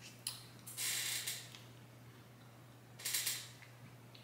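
A thick, chewy cookie being pulled apart by hand: a small click, then two short, soft tearing rustles about two seconds apart.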